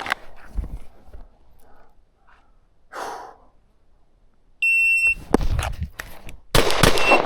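A shot timer's high electronic start beep for about half a second, followed by a pistol being fired, with loud shots near the end.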